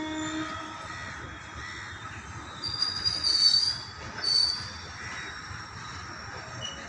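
Loaded coal wagons of a freight train rolling past with a steady rumble, the wheels squealing high and loud for about a second and a half near the middle and again briefly just after.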